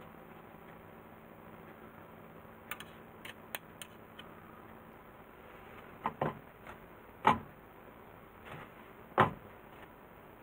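A run of light clicks of a metal spoon against the glass mixing bowl, then four louder single knocks a second or two apart as the filled paper loaf molds are set down on the wooden pastry board.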